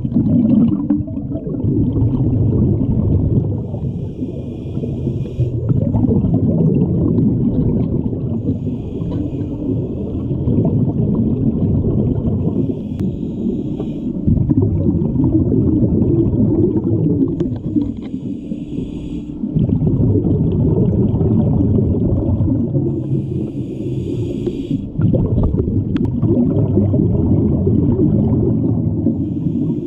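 Scuba diver breathing through a regulator underwater: a hiss on each inhale, about every four to five seconds, alternating with the low, continuous rumble of exhaled bubbles.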